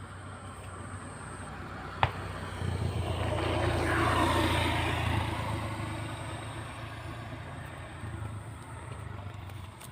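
A motor running with a steady low hum, growing louder to a peak about four seconds in and then slowly fading, as of a motor vehicle passing by. A single sharp click comes about two seconds in.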